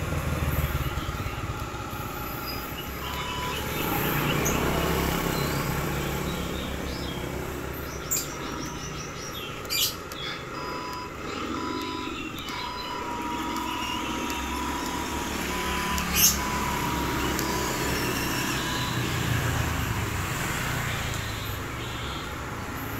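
Handmade 1/10-scale RC Hino 700 6x4 truck driving over concrete, its drive giving a low steady hum that swells and fades. A thin high tone comes and goes, and there are three sharp knocks.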